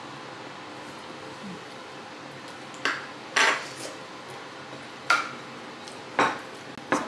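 Ceramic soup spoon clinking and scraping against a ceramic bowl of congee while eating. A series of short, sharp clinks begins about three seconds in, one or two at a time.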